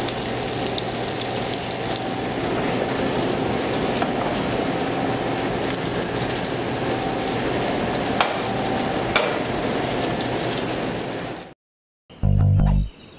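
Parmesan-coated speckled trout frying in a hot pan of clarified butter and canola oil: a steady sizzle with a couple of sharp pops about eight and nine seconds in. The sizzle cuts off suddenly near the end, and after a moment of silence music with a heavy low beat starts.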